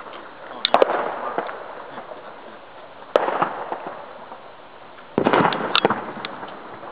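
Fireworks going off in three bursts, a couple of seconds apart. Each burst is a sharp crack that trails off over about a second, and the last one has several cracks in quick succession.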